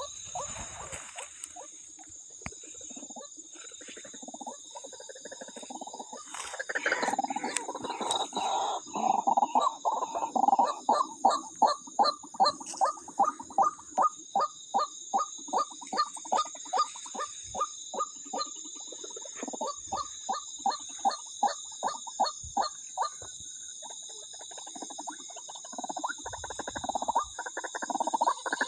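White-breasted waterhen calling a loud, repeated 'kwak' about twice a second in a long series that builds up, peaks and then thins out, over a steady high-pitched ringing.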